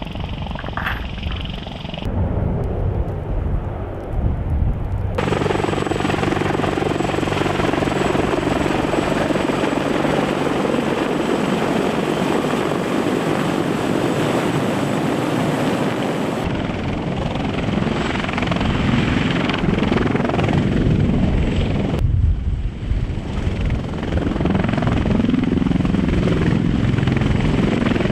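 Sikorsky CH-53E Super Stallion heavy-lift helicopter running close by: a loud, steady rotor and turbine noise with a faint high whine, changing abruptly several times as the shots cut.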